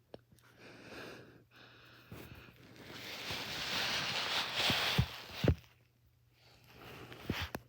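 Sharp clicks from a person's feet: two loud ones about half a second apart, then two fainter ones near the end, after a rustling hiss that swells over a couple of seconds.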